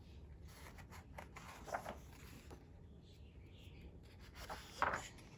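Paper pages of a leatherbound hardcover book being turned by hand: a few soft rustles of paper, the loudest near the end.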